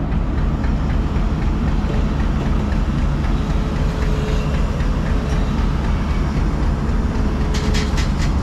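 Lonking crawler excavator's diesel engine running steadily under hydraulic load as the boom swings and lowers, with a faint steady whine from about three seconds in until near the end. A few sharp knocks near the end.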